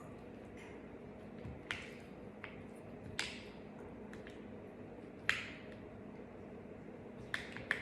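Eating sounds: a handful of short, sharp mouth or utensil clicks, two of them close together near the end, over a steady low hum.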